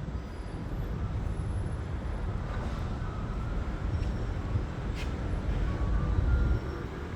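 Low outdoor rumble with no clear pitch, swelling gradually and dropping off sharply near the end. A single sharp click comes about five seconds in.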